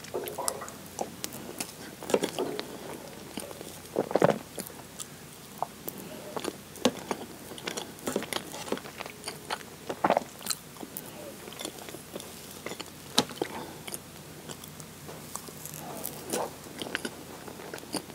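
Close-miked chewing of whipped-cream sponge cake: soft wet mouth sounds and lip smacks, with sharp clicks scattered throughout.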